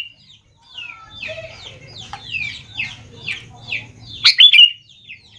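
Sooty-headed bulbul (kutilang) calling: a rapid run of short, downward-sliding chirps, with a louder burst of calls about four seconds in.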